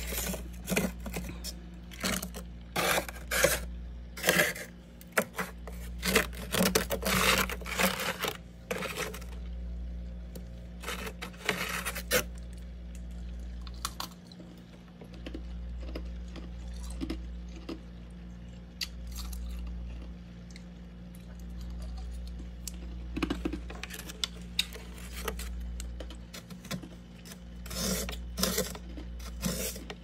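Crisp crunching and scraping of freezer frost in clusters of sharp crackles. The crackles come through the first twelve seconds, ease off, and return from about 23 to 29 s, over a steady low hum.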